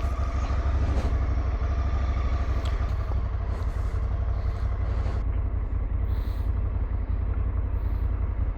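Adventure motorcycle engine running steadily under way, with heavy low wind rumble on the microphone.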